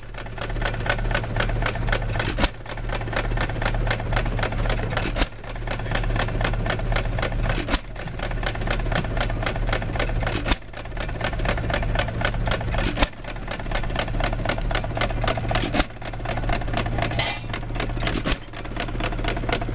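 Lauson L hit-and-miss gas engine running under belt load: fast, even clicking of its valve gear, broken by a sharp firing bang about every two and a half seconds as it fires, then coasts on its flywheels between power strokes.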